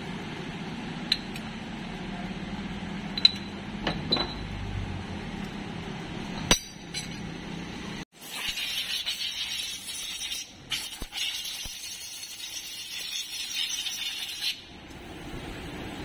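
Sharp metallic clinks and taps, four or five in the first half, as the scooter's CVT variator rollers, variator plates and spanners are handled, over a steady low hum. After a cut about halfway, a rough hiss replaces the hum.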